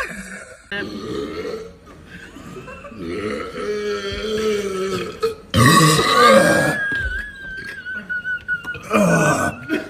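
A person burping after drinking carbonated Sprite, in several separate attempts. There is a long, drawn-out sound about three seconds in, and the loudest burp comes about five and a half seconds in.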